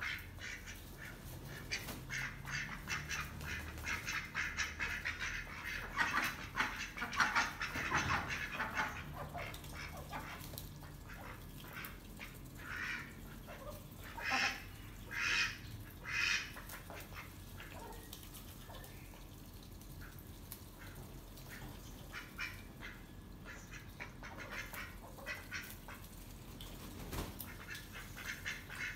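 Domestic ducks quacking: a dense run of quick quacks through the first several seconds, three louder single quacks about a second apart around the middle, then scattered quacks.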